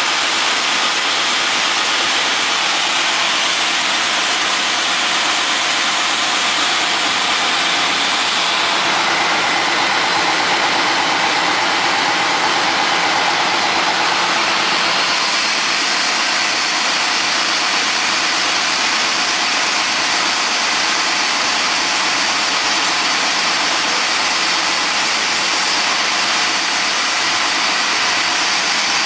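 Wide double-belt sander running with a steady, even machine noise from its motors, sanding belts and feed conveyor. The tone shifts slightly about halfway through.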